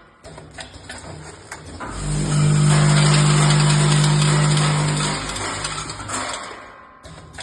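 Vibratory bowl feeder of a screw and fastener packaging machine. It begins with light clicks of small metal parts; about two seconds in the bowl's drive starts a loud, steady hum with parts rattling, which dies away near the end.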